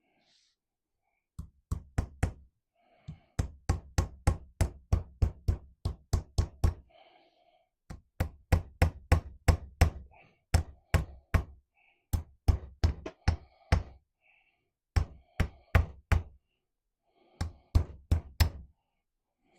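Hammer tapping a new wiper seal into the steel gland of a Kubota BX23 loader tilt cylinder to seat it. Runs of sharp taps, about four a second, in several groups with short pauses between them.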